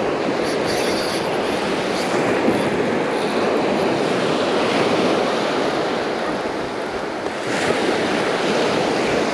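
Surf washing on a beach as a steady rushing noise, swelling briefly near the end.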